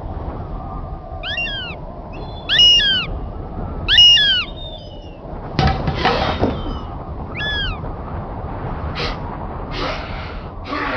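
Four short, high-pitched animal calls, each rising and then falling in pitch, over a steady background hiss. In the second half come several short bursts of hiss.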